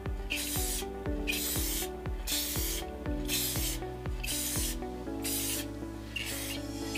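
Rust-Oleum primer spray can hissing in short, light passes, starting and stopping about once a second, over background music with a steady beat.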